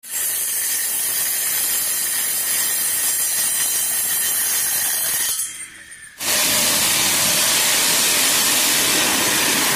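Homemade cutting machine driven by an RS775 DC motor: its spinning metal disc cuts a thin wooden strip with a steady high whine and hiss. After a short drop about five seconds in, a louder even hiss follows as a green abrasive disc grinds rust off a sheet of metal.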